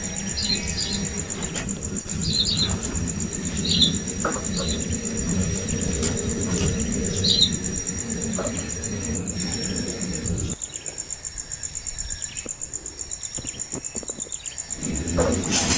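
Short bird chirps repeated every second or two over a steady, high insect trill. A low rumble underneath stops about ten seconds in.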